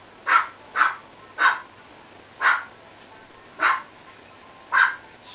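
A 53-day-old chihuahua puppy yapping: six short, high yaps at uneven intervals.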